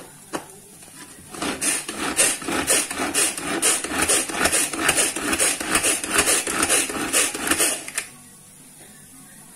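Pull-cord hand food chopper chopping tomatoes and green chillies: a quick run of pulls, about three a second, each spinning the blades against the food in the plastic bowl. It starts about a second and a half in and stops shortly before the end.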